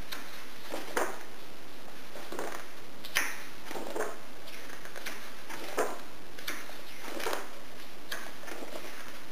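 Soft, irregular clicks and taps, about one a second, over a steady hiss.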